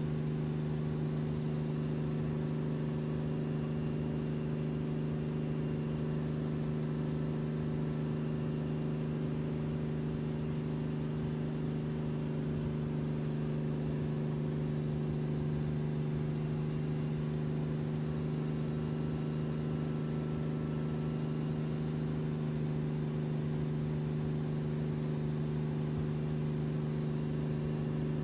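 Tow boat's engine running at a constant speed under load: a steady low drone that does not change.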